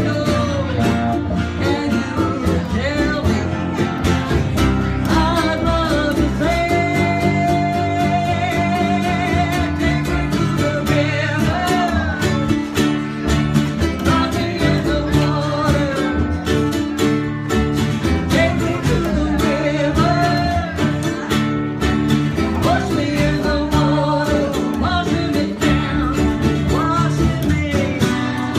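Country-style band music with guitar, carrying a wavering lead melody over a steady low accompaniment.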